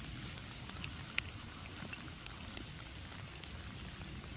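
Scattered raindrops plinking into a shallow pond, over a steady low background hiss, with one sharper drip about a second in.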